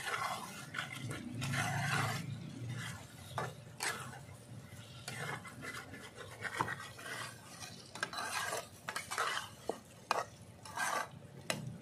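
A metal spatula stirring and scraping around a kadai of lote (Bombay duck) fish in onion-tomato masala, in irregular strokes. The fish is being cooked down in the masala until it softens and its bones come loose.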